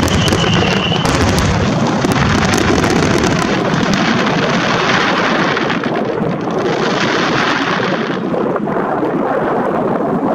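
Fireworks finale barrage: many shells and mines bursting at once in continuous booming and dense crackling, with wind rumbling on the microphone. A whistling shell's slightly falling whistle fades about a second in, and the crackle thins out near the end.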